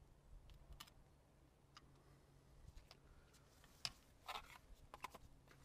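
Faint, scattered small clicks and a short scrape from a spatula and the metal pan of an oxalic acid vaporizer being handled while the crystals are dosed; the sharpest click comes about four seconds in.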